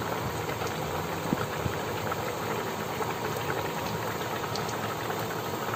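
Pot of fish and vegetable soup boiling: a steady bubbling hiss with a few small pops.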